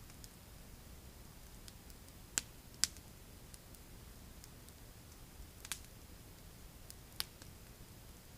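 Wood campfire crackling: a few sharp, scattered pops over a faint steady hiss, the loudest two close together about two and a half seconds in.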